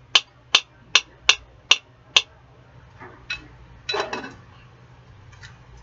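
Kitchen utensil tapping against cookware: seven quick, evenly spaced sharp taps in the first two seconds, then a single tap and a brief clatter of dishes about four seconds in.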